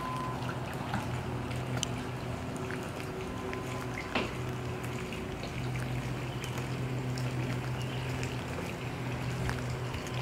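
Water trickling steadily from a swimming pool, with a low steady hum underneath and a few faint clicks.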